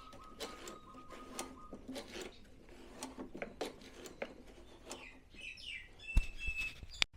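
Scattered light clicks and taps from handling, with a few short bird chirps about five seconds in and two sharper knocks near the end.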